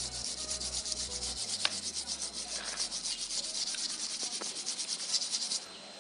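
Wire brush scrubbed rapidly back and forth over a PCB board to clean it before soldering, a steady scratching of quick even strokes that stops abruptly near the end.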